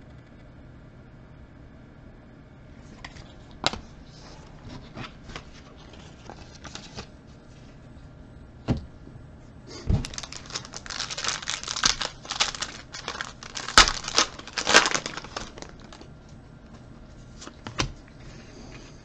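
Scattered light clicks and taps of cards and packaging being handled. About ten seconds in come several seconds of dense crinkling and tearing as a plastic trading-card pack wrapper is torn open.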